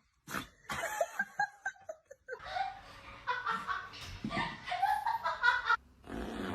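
People laughing in snickers and chuckles, with a short breathy burst near the end.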